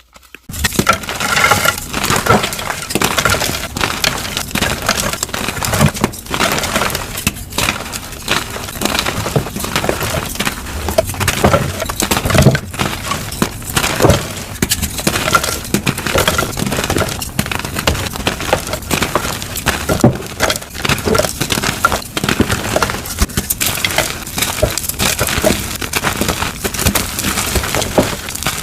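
Blocks of dyed gym chalk being crushed and crumbled: a dense, unbroken run of crunchy, crispy crackles and snaps.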